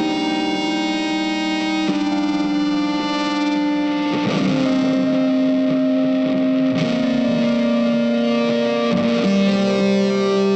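Background music: sustained electric guitar chords with distortion, changing every second or two.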